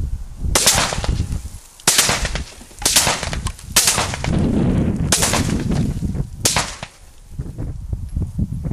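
Light machine gun firing six times at a target, roughly a second apart, each report trailing off in a short echo.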